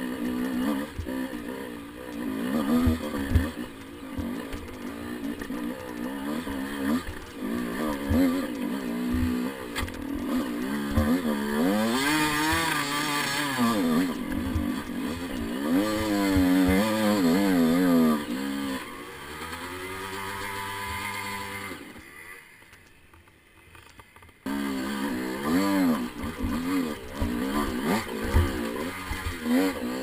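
Dirt bike engine revving up and down on a rocky climb, with short knocks from the bike striking rocks. Near the end it settles to a lower steady note, drops almost silent for about two seconds, then comes back suddenly.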